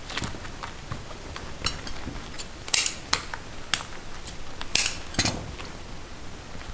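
Irregular sharp clicks and clinks of hard sugar candy being worked with metal tools, with a handful of louder strikes in the middle.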